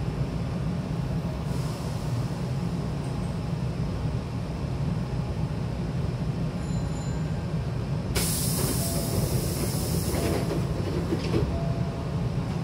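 Commuter train's sliding double doors closing: a loud hiss of air for about two seconds, then a knock as the door leaves meet. A steady low hum from the standing train runs underneath.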